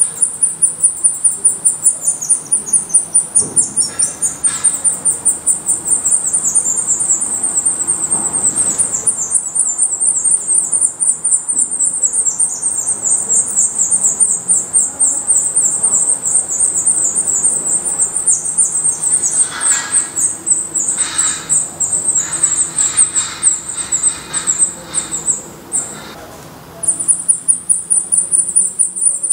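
Black redstart nestlings begging: a rapid, continuous series of very high-pitched calls, stopping for about a second near the end and then starting again. The chicks are begging for food from the parent at the nest.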